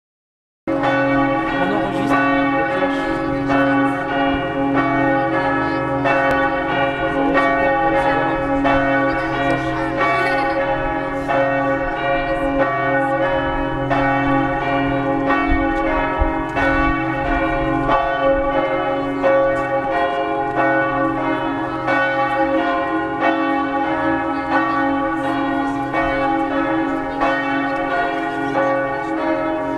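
A peal of church bells ringing, strike after strike overlapping into one continuous, loud ringing. It starts just under a second in.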